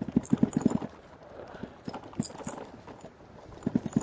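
2018 RadRover fat-tire electric bike jolting over rough, grassy ground: quick clusters of knocks and rattles from the bike, with a dense burst at the start, a few single knocks in the middle and another burst near the end.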